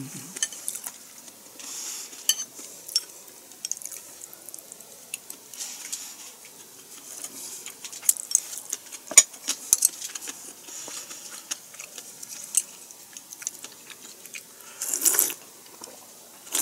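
Eating at a table: chopsticks click against dishes, with chewing and breathing. About fifteen seconds in comes a slurping sip of clear soup from a wooden bowl.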